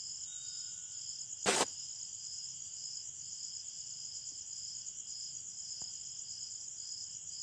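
Faint insects trilling steadily, with one call pulsing about twice a second. A single sharp click about a second and a half in.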